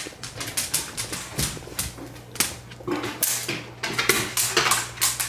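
Dogs' nails clicking irregularly on a laminate floor as they walk, over a low steady hum.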